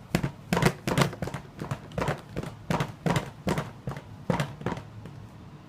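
A series of about a dozen sharp, irregular knocks or taps that die away near the end.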